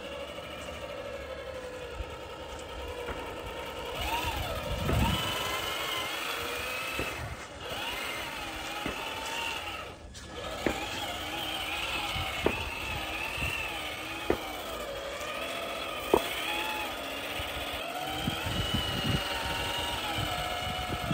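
Traxxas TRX-4 High Trail RC crawler's electric motor and geared drivetrain whining, the pitch rising and falling as the throttle is worked, with a few sharp clicks in the second half.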